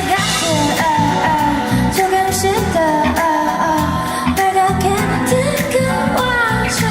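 Pop music with a sung melody gliding between notes over a steady beat and bass.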